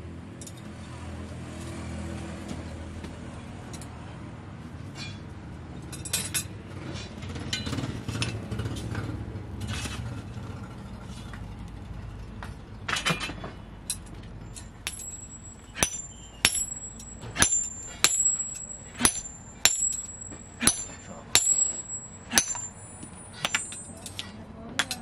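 Coal forge burning with a low steady rumble and a few metal clinks. From about fifteen seconds in, hammer blows on red-hot steel on the anvil, a little over one a second, each with a high ring, as the adze axe head is forged.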